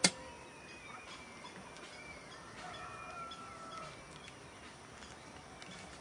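Rooster crowing faintly, one long crow about two and a half seconds in. A sharp click at the very start is the loudest sound.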